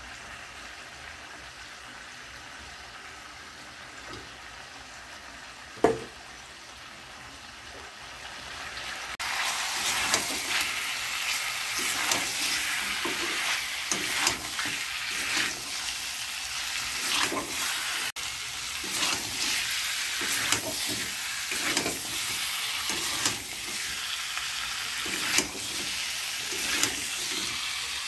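Chicken pieces and ground spices frying in oil in a wok while being stirred with a spatula, with repeated scraping strokes. Quiet at first with a single sharp knock about six seconds in; the sizzling turns loud about nine seconds in and stays loud.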